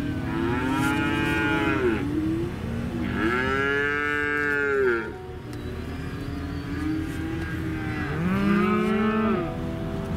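Cattle mooing close by: three long moos, each rising and then falling in pitch. They are heard over the low steady hum of a vehicle, from inside its cab.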